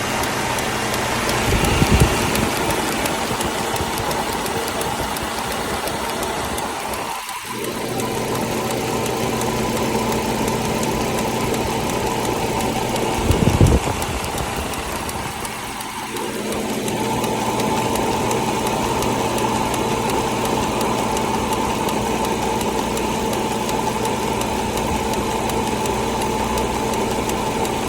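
Hyundai Elantra engine idling steadily with a tick-tick sound of unknown cause. Two loud low thumps break in, about two seconds in and again near the middle.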